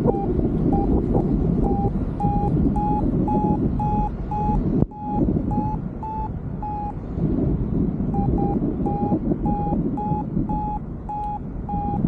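Paragliding variometer beeping its climb tone, short high beeps about three a second, signalling that the glider is rising in lift. The beeps pause briefly past the middle and then resume, over heavy wind rumble on the microphone.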